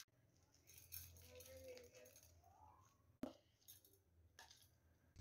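Near silence: faint room tone with a single sharp click about three seconds in.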